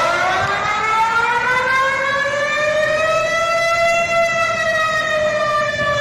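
Malaysian emergency alert siren: one continuous blaring tone, rich in overtones, that rises slowly in pitch for about four seconds and then sags slightly.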